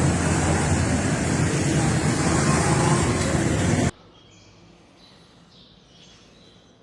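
Loud, steady road traffic noise with a low engine rumble, cutting off abruptly a little before four seconds in; after that only a much quieter background with a few faint high tones.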